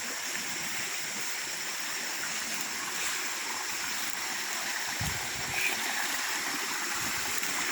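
Steady outdoor background noise, an even high hiss, with a few low bumps about five seconds in and again a little before the end.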